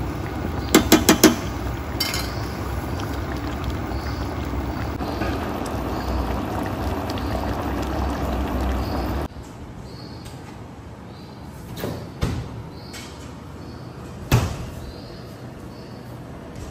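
Chicken in a thick soy-ginger sauce bubbling at a simmer in a pan, with a metal spatula clinking against the pan a few quick times about a second in. The sound drops quieter about nine seconds in, leaving small bubble pops and a couple of louder pops.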